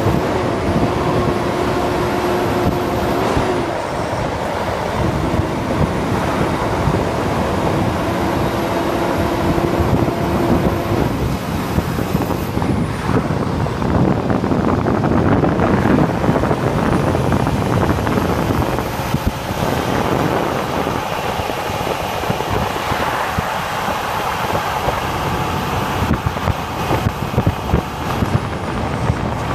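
Highway traffic passing: a continuous tyre and engine rumble from cars and trucks, with a steady hum that stops about a third of the way in and a louder swell about halfway through as a vehicle goes by.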